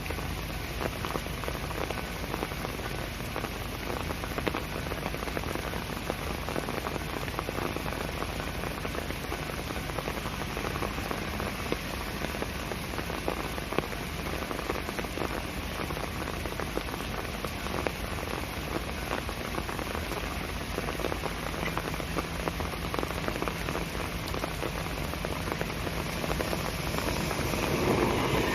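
Heavy rain falling in large drops: a steady hiss of rain on the ground, growing louder near the end.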